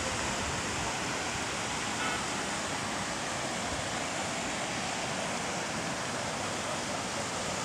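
Rocky mountain stream rushing over small rapids: a steady, even rush of water.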